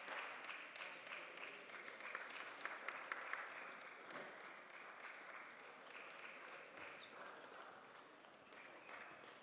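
Faint sports-hall ambience between table tennis points, slowly fading, with a short run of quick light taps about two to three seconds in.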